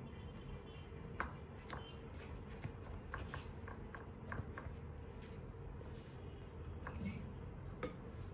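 Light, irregular taps and pats of hands pressing and flattening small soft dough rounds on an aluminium baking tray, over a faint steady hum.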